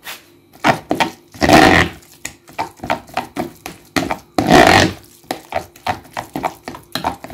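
Metal spoon stirring a minced shellfish mixture in a plastic bowl: a run of short clicks and knocks of the spoon against the bowl, with two longer, louder scraping strokes about one and a half and four and a half seconds in.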